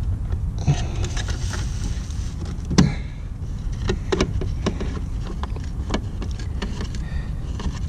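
Scattered light clicks and taps of a composite rear fascia extension being handled and pressed into place against a C7 Corvette's rear bumper, the sharpest about three seconds in and a few more over the next several seconds, over a steady low rumble.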